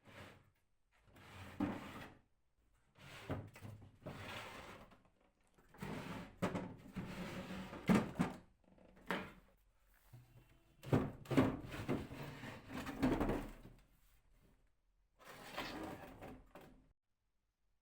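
Drawers of a wooden dresser being slid and handled: a series of separate wooden scrapes and knocks, with short pauses between them.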